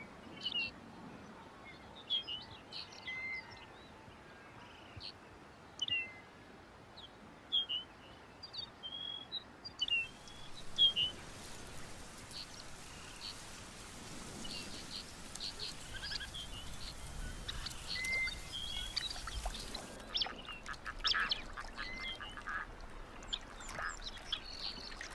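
Wild birds calling on the tundra: short chirps and whistled notes repeat every second or so, over a soft hiss in the middle stretch. In the last few seconds comes a quick run of rapid, harsh calls.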